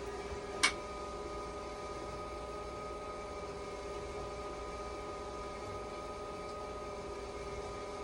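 Dialysis machine running after its burnt plug was replaced, giving a steady hum made of several constant tones. A single sharp click sounds about half a second in.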